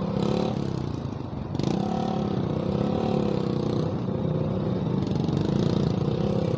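Motorcycle engine running in slow traffic, its pitch rising and falling gently with the throttle; it eases off about a second in and picks up again shortly after.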